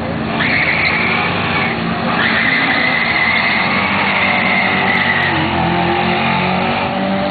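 Drag-racing cars at the start line with tires squealing in two long stretches under engine noise, then an engine note rising steadily as a car accelerates hard down the strip near the end.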